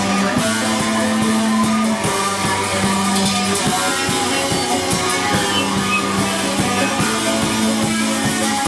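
Rock band playing live: guitar and drum kit, with held low notes under steady drum hits.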